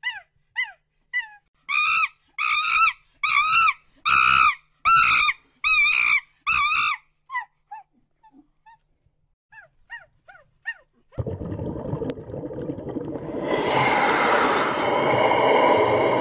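A quick series of short, high animal calls, each falling in pitch, louder and longer in the middle of the run, then a few faint ones after a pause. From about 11 seconds in, a steady rushing noise takes over.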